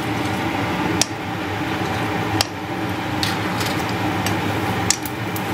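Steady hiss and hum from the stove under a pan of hot oil, broken by three light clicks about one, two and a half, and five seconds in.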